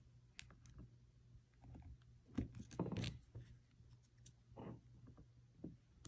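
Faint, scattered clicks and taps of a plastic pry tool and fingers working a laptop's battery cable connector on the motherboard, over a low steady hum.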